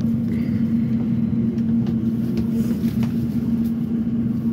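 Class 345 electric train running, heard from inside the carriage: a steady low rumble with a constant hum.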